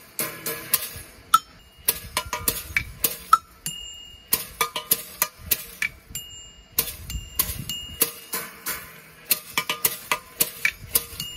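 Stump fiddle being played: a quick, uneven run of sharp clacks and taps with short metallic rings, coming in bursts with brief pauses.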